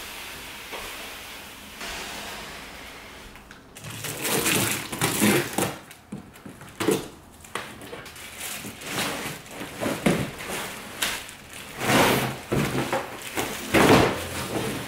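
A large cardboard shipping box and the plastic-wrapped metal parts of a folding bistro set being handled while unpacking: a steady hiss at first, then from about four seconds in, irregular rustling, scraping and crinkling with uneven loud peaks.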